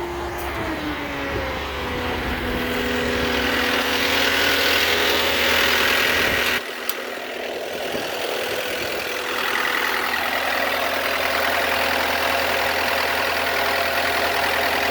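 Cat 299D2 compact track loader's diesel engine running. Its speed drops in the first couple of seconds and it then settles to a steady idle. About six and a half seconds in there is an abrupt change in the sound, with the deep part dropping away.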